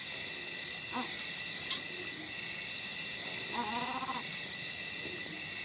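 A steady chorus of bush insects sets up several high, even tones. Over it come a short wavering animal cry about three and a half seconds in and a couple of brief chirps earlier.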